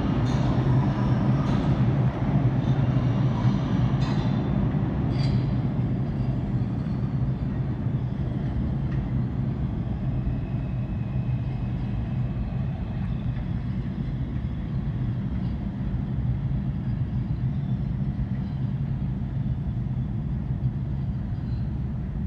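R142 subway train running away down the tunnel, its rumble slowly fading. A few sharp clicks of the wheels come in the first seconds.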